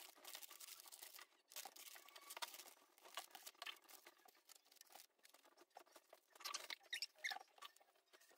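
Faint crinkling and tearing of plastic candy wrappers and packets being opened by hand, with scattered light clicks and taps.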